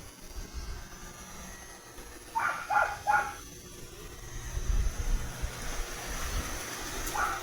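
A dog barking three quick times about two and a half seconds in, over a faint low rumble.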